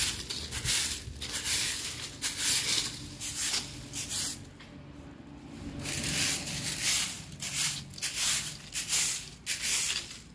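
Stiff stick broom sweeping the ground, its strokes scratching at about two a second, with a pause of about two seconds midway.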